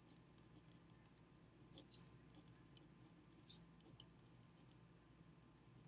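Near silence with faint, scattered ticks and scratches of a pen writing on paper.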